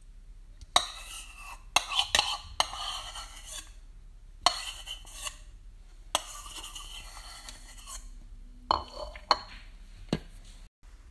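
A metal spoon scrapes a thick mayonnaise dressing out of a ceramic mug and stirs it into a bowl of macaroni salad. Sharp clinks of the spoon against the mug and bowl come at irregular intervals, with stretches of scraping between them.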